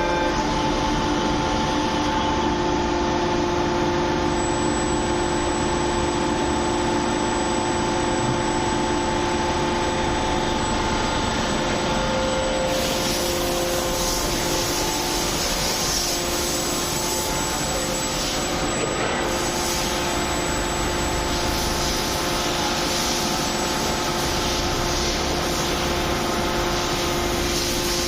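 1200-ton open-die hydraulic forging press running: a steady machine drone with several steady whining tones over a hiss. The hiss gets brighter about halfway through.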